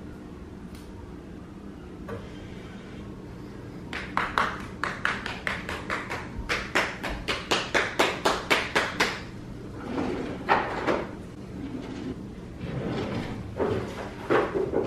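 Gas stove burner igniter clicking rapidly, about four to five clicks a second for some five seconds, as a burner is lit. Then a few knocks and rattles of a kitchen drawer or cupboard being handled.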